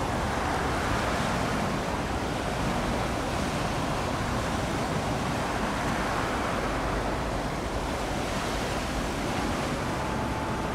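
Steady rushing noise of wind and waves at the strait's shore, even in level throughout. A faint thin steady tone joins it about a second before the end.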